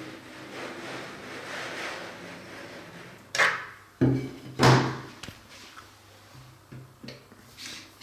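Lifting a phone out of a container of hot water and handling it: a soft rushing noise for about three seconds, then three sharp knocks in quick succession around the middle, followed by a few lighter taps and clicks.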